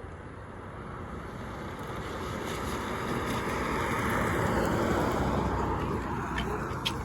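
A car passing on a wet road, its tyres hissing as it approaches, loudest about halfway through, then fading away.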